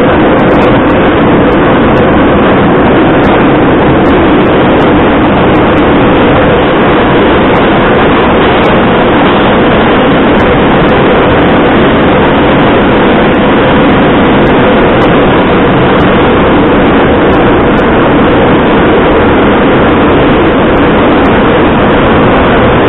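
Moscow Metro train running at speed through a tunnel, heard from inside the carriage: a loud, steady din of wheels and running gear with a droning hum, unbroken throughout.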